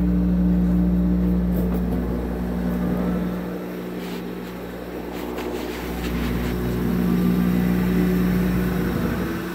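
A steady low mechanical hum over a deep rumble. It fades about three and a half seconds in and swells back about two seconds later, with faint rustling of a jacket rubbing the phone.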